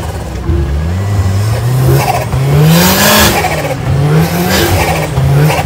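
Off-road 4x4's engine revving hard in repeated rising surges as it climbs a steep dirt bank under load. The loudest surge, about three seconds in, comes with a loud rush of noise.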